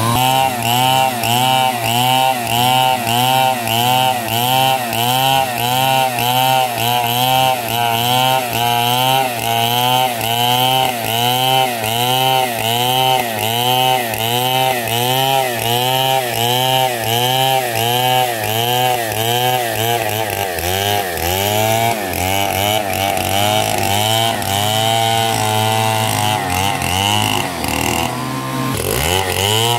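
Stihl chainsaw ripping lengthwise along a squared log, the engine working at high revs with its pitch and loudness rising and dipping about twice a second under the load of the cut. The swings settle into a steadier run in the last third.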